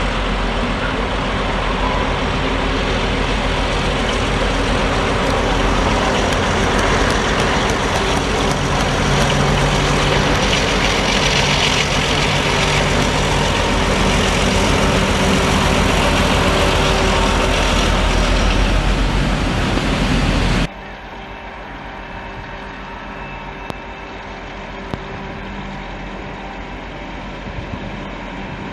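DB Class 232 'Ludmilla' diesel locomotive's V16 diesel engine working at full load: a loud, steady drone. About two-thirds of the way through it cuts off abruptly to a much quieter, slowly rising train sound as a train approaches, with a few faint clicks.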